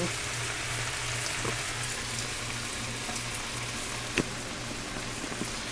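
Chicken breast tenders sizzling steadily in a pan on high heat, their juices cooking off. A single sharp click about four seconds in.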